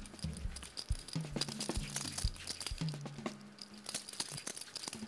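Soft crackling and handling noises as dough for fried dumplings is pinched off and rolled between the palms. Quiet background music with a low bass line runs underneath.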